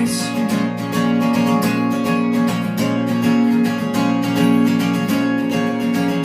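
Acoustic guitar strummed in a steady rhythm in an instrumental passage, with the last sung word of the chorus at the very start.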